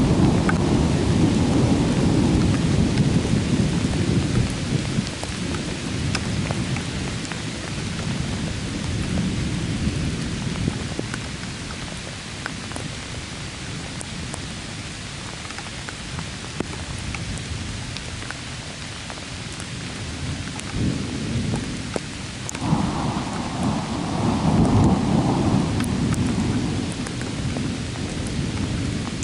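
Thunder rumbling over steady rain. A long rumble dies away over the first several seconds, and a second rumble builds about twenty seconds in and is loudest a few seconds later. Scattered drops tick close by throughout.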